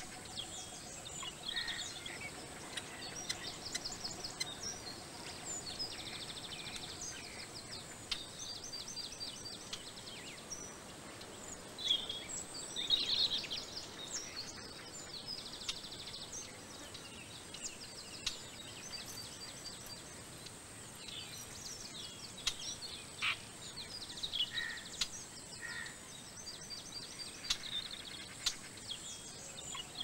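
Small birds chirping and twittering in quick runs of trills, over a steady high-pitched hiss; the calls are loudest about halfway through.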